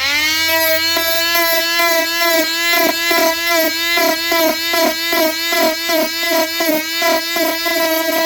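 Dremel rotary tool spinning up to a steady high whine, then grinding back the broken fiberglass edge of a boat hull. Its pitch dips briefly about twice a second as the bit bites into the material.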